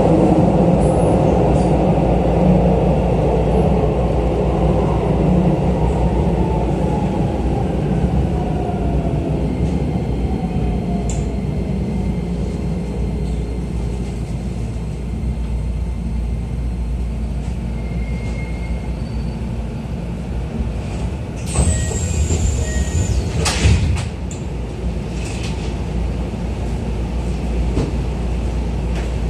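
Interior running noise of a Keisei new 3000-series electric train braking into a station: the traction-motor whine falls steadily in pitch as the train slows. A brief high squeal comes about three-quarters of the way through as it comes to a stop.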